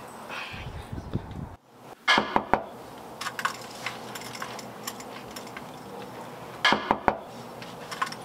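Two quick sets of about three sharp knocks, roughly four and a half seconds apart, over a faint low background murmur.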